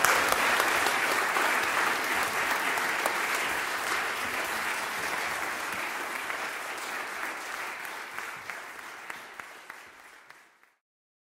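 Concert audience applauding at the end of a wind band piece. The clapping slowly fades and then cuts off to silence about ten and a half seconds in.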